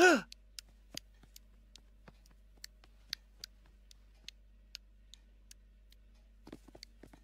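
Light, sharp ticks at an uneven pace of about two or three a second: a cartoon sneaking-footstep effect for cat paws creeping.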